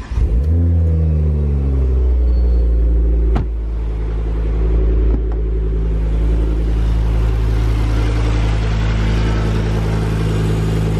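Ford Focus ST's 2.5-litre turbocharged five-cylinder engine catching on the starter, flaring and falling in pitch over a couple of seconds, then settling into a steady idle. This is its first start after a clutch and flywheel replacement.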